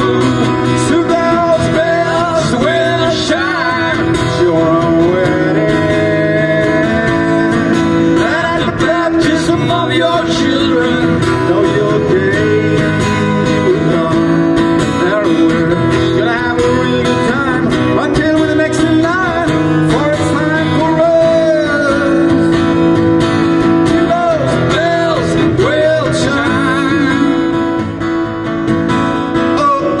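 Live music: an acoustic guitar strummed steadily, with a wavering lead melody over it carried through the microphone and PA speakers.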